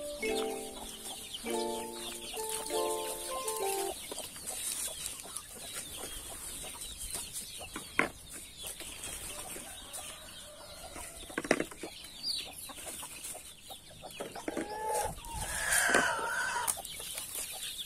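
Domestic chickens clucking around the coop, with a louder burst of clucking near the end. There are a couple of sharp clicks in the middle as eggs are set into a plastic bowl. Background music plays in the first few seconds.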